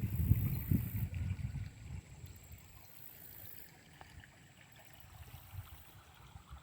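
Faint, steady flow of a shallow creek. A low rumble on the microphone covers it for about the first two seconds.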